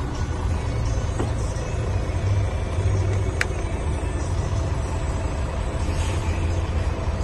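Mercedes-Benz Actros 4341 truck's diesel engine idling, a steady low rumble heard from inside the cab. A short sharp click about three and a half seconds in.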